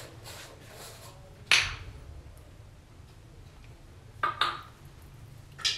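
A few sharp clicks and knocks of kitchen utensils and containers handled at a countertop: one loud tap about a second and a half in, a quick double click past four seconds, and another near the end, over a low room hum.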